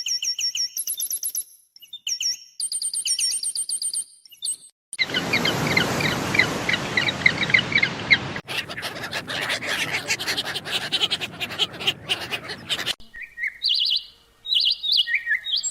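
Different birds chirping and calling in a string of short cut-together clips: first repeated short high chirps, then a fast run of chirps over a steady hiss, then a stretch of hiss and clicks, and near the end a song of varied short warbled notes.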